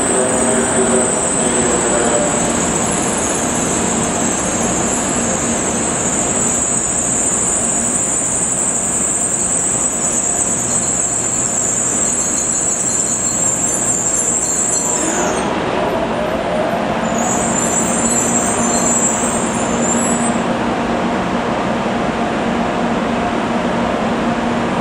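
N700A Shinkansen train (N700 series 1000, 16 cars) pulling into the station and slowing to a stop: steady rolling and rail noise with a high whine that cuts off about fifteen seconds in and comes back briefly a few seconds later, and a short sliding tone in the middle.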